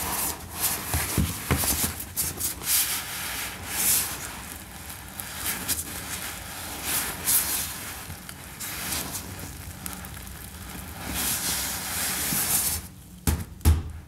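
Leather boxing gloves handled by gloved hands: irregular rustling and scuffing of leather as they are turned, rubbed and pressed together, with two short knocks near the end.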